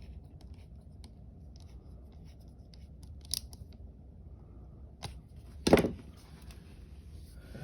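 Light ticking and clicking of a small screwdriver and parts while screws are driven back in to secure a laptop's replacement drive, with a sharper click about three seconds in and a louder clack near six seconds.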